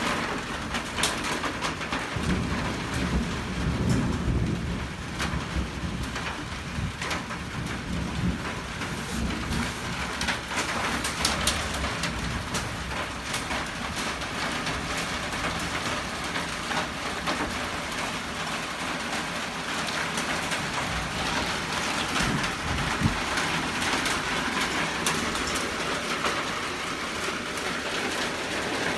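Steady rain falling on a tin roof, which makes it sound heavier than it is. A few seconds in, a low rumble of thunder comes in and fades out by about ten seconds.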